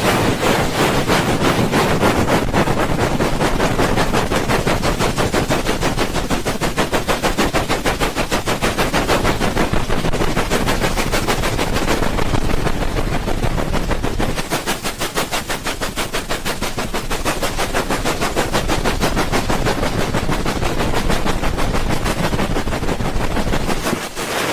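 ASMR "helicopter" ear rubbing: hands rubbing and patting rapidly over a microphone's ears, making a fast, even chopping rhythm like helicopter rotor blades.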